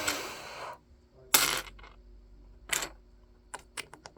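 Small plastic Lego pieces rattling and clicking as they are handled: a rattle that fades out within the first second, two short sharp rattles, then a quick run of small clicks near the end.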